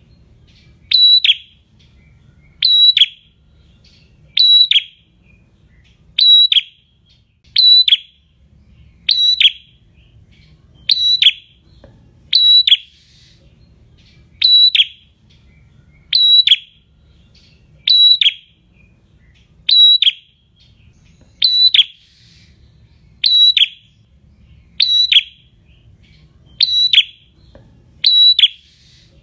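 Caged prenjak (a small warbler-type songbird) calling over and over: the same short, sharp, high call repeated evenly about every second and a half to two seconds, each note dropping in pitch at its end.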